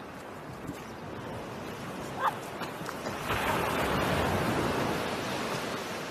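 Surf washing on the shore as a steady rush that swells to its loudest a little past the middle, with one short yip from a small dog about two seconds in.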